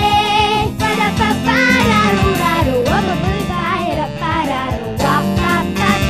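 Pop song: a girl singing a melody over a backing track with a steady beat.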